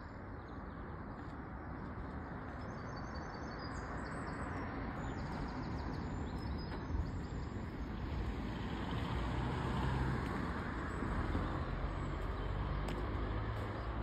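Road traffic: the tyre and engine noise of passing cars, swelling to its loudest as a car goes by about ten seconds in. A few faint bird chirps come through a few seconds in.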